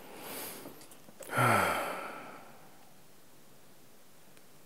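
A man breathes in softly, then lets out an audible sigh about a second and a half in, his voice dropping in pitch as the breath runs out.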